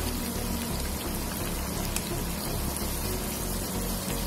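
Oat-and-batter-coated tilapia fillets deep-frying in hot oil: a steady, dense crackle and sizzle of bubbling oil.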